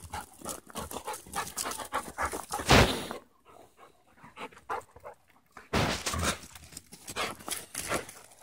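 Labrador retrievers panting quickly while they play, in short rapid breaths that fall quiet for a couple of seconds in the middle. A brief loud burst of noise about three seconds in is the loudest sound.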